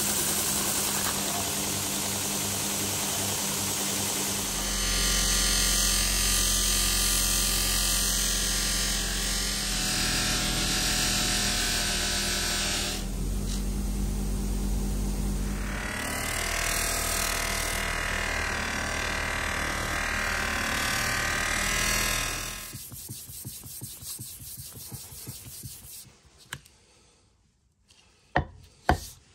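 Power abrasives on a steel club hammer head: a belt grinder running with the head pressed to the belt, then a spinning polishing wheel, a steady motor sound that shifts in pitch several times. About 23 seconds in the machine sound stops, leaving quieter hand sanding on abrasive paper and two sharp knocks near the end.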